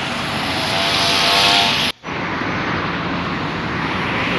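Road traffic: a car passing close by, its tyre and engine noise swelling to a peak about a second and a half in. The sound cuts out abruptly for an instant at about two seconds, then steady traffic noise goes on.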